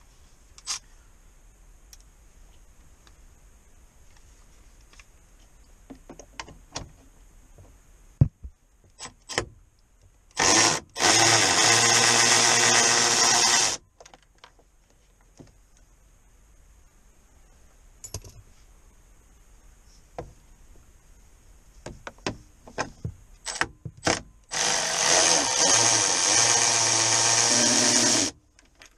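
Cordless power driver spinning a socket to back out the 10 mm bolts holding the pillar and grab-bar trim. It makes two runs of steady motor whir of a few seconds each, the first about ten seconds in after a short blip and the second about twenty-five seconds in, with scattered clicks and taps between them.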